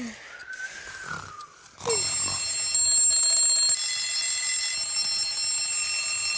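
A soft whistling cartoon snore, then about two seconds in several alarm clocks start ringing at once, a loud steady ringing that keeps on.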